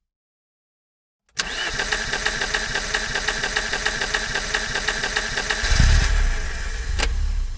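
Car starter motor cranking the engine, opening with a sharp click and going on at an even, fast pulsing beat with a whining tone. Near the end a deeper rumble swells briefly and another sharp click sounds. This is the engine cranking but not starting.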